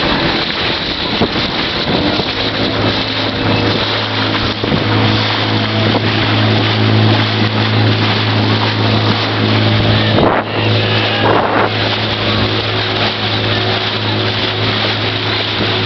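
Motorboat engine running at a steady speed, a constant low hum, with wind on the microphone and the rush of water past the hull.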